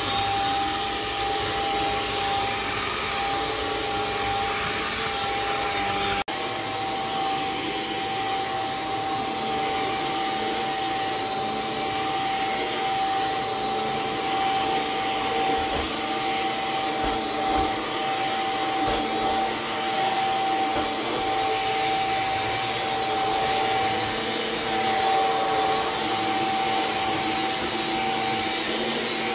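Cordless stick vacuum running steadily over carpet: a constant motor whine over the rush of air and brush roll. The sound breaks off for an instant about six seconds in, then carries on the same.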